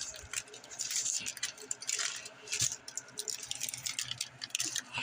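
Rustling and crinkling with light clicks and taps, the kind of sound made handling a pack of refrigerated crescent roll dough on a kitchen counter, in irregular bursts about one, two and two and a half seconds in.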